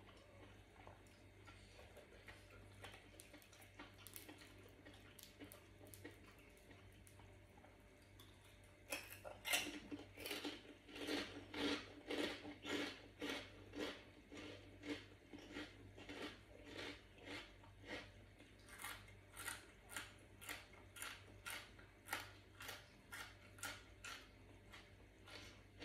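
Close-up chewing of crunchy food, a steady crunch about one and a half times a second, starting about nine seconds in. Before it, only faint soft clicks.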